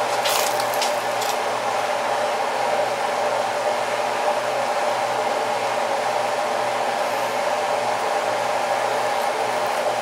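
Steady whirring of a running electric blower fan with a low, even hum. A few crisp crunches in the first second or so as a slice of crusty pizza is bitten and chewed.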